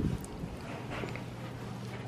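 A single low thump right at the start, then a steady low hum with faint rustling: room tone.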